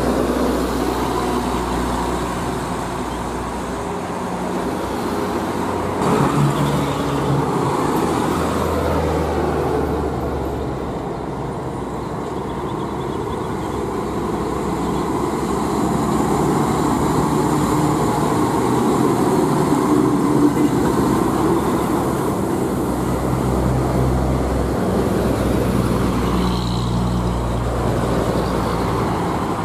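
Heavy diesel cargo trucks passing on a busy road, their engines droning low over steady tyre and traffic noise that swells and fades as each truck goes by.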